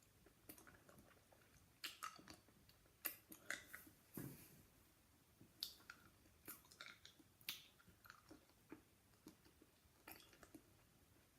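Faint mouth sounds of someone chewing a cough sweet: irregular wet clicks and small crunches, a few every second.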